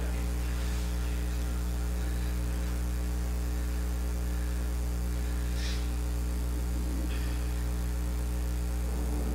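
Steady electrical mains hum, a constant low tone with a ladder of overtones, with a faint brief sound about halfway through.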